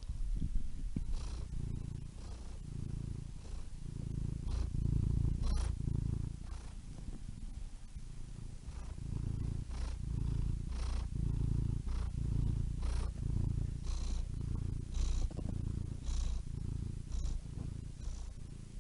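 Domestic cat purring steadily, a low rumble that swells and eases about once a second with each breath.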